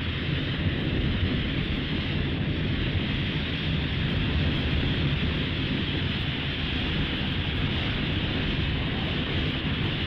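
Showa Gamera film sound effect: a steady rushing noise over a deep, continuous rumble.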